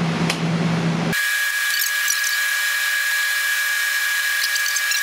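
A steady, high-pitched electronic tone starts abruptly about a second in and holds level, while the low kitchen hum underneath cuts out at the same instant.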